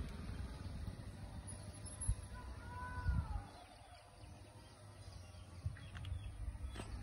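Quiet rural outdoor ambience. A vehicle engine fades out near the start, a few low thumps follow, and a short whistling call rises and then falls about two seconds in.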